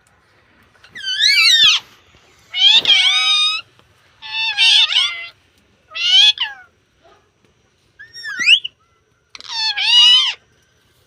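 Six high, meow-like calls from a pet animal, each about a second long and sliding up and down in pitch, with short gaps between them.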